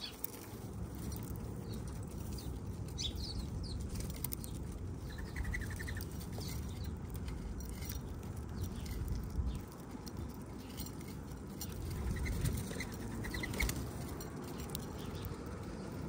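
Small backyard birds at a seed feeder: wings fluttering, with scattered small clicks and a couple of short, high chirps.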